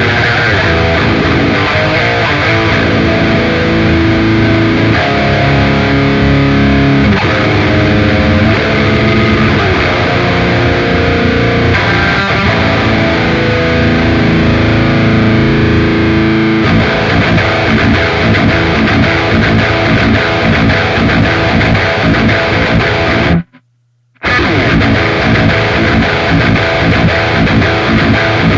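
Distorted electric guitar played through an Axe-Fx amp modeler: held, sustained notes for about the first half, then a fast chugging rhythm. The sound cuts out suddenly for under a second near the end, then resumes.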